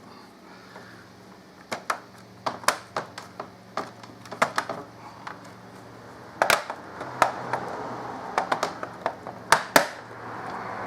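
Plastic retaining clips of a laptop's bottom case snapping into place as the case is pressed down around its edges: a string of irregular sharp clicks, a few of them louder, with a rustle of hands working over the case in the second half.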